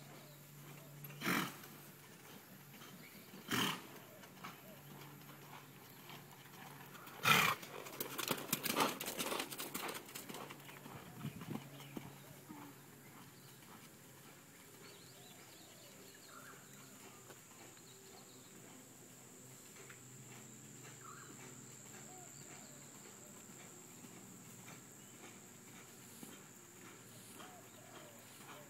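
Hoofbeats of a ridden horse on an arena: two sharp single knocks, then a short run of clattering about seven seconds in, followed by a long quieter stretch with a faint steady high-pitched tone.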